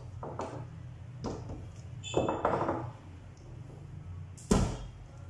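Centrifuge's metal motor-mount plate being lowered and settled onto its sheet-metal case: light knocks and a brief metallic clink about two seconds in, then a louder clunk about four and a half seconds in.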